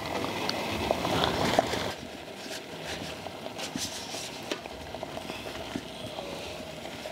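Corn-husk-wrapped tamales being packed one by one into an aluminium steamer pot over boiling water: dry husks rustling and scraping, with small taps against the metal rim and rack, a little louder in the first two seconds.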